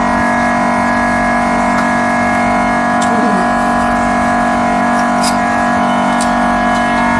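Steady mechanical hum of an LCD screen separator machine's vacuum pump running to hold the phone screen on the heated plate, with a few faint clicks.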